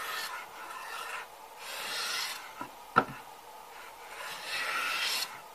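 Great Neck G-4 metal bench plane, tuned up as a smoothing plane, taking shavings off a wooden board in separate hissing strokes about a second long, with a sharp knock about three seconds in.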